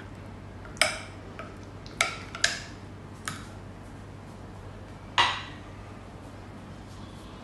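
A metal spoon clinking against a glass dish while a thick yogurt-tahini sauce is stirred: about five sharp clinks with short ringing, the loudest one about a second in and another about five seconds in.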